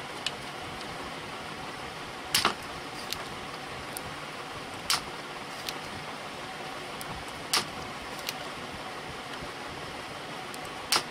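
Soldering iron at work desoldering the rectifier diodes on a CRT television's power-supply board: a steady background hiss with four loud, sharp clicks about two and a half seconds apart and a few fainter ticks between them.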